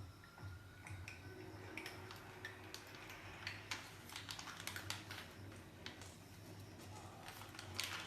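A pet eating treats: irregular light clicks and crunches, several a second.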